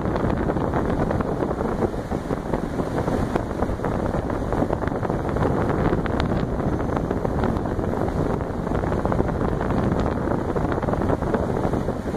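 The Alugen 6K-I ST portable evaporative air cooler's fan running steadily, its stream of blown air rushing over the microphone.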